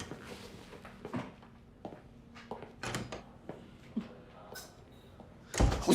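A few light, scattered knocks and clicks, then a louder, deeper thump near the end.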